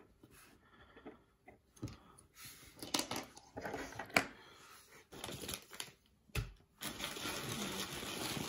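Small plastic building bricks clicking and tapping as they are handled, then a plastic parts bag crinkling steadily from about seven seconds in.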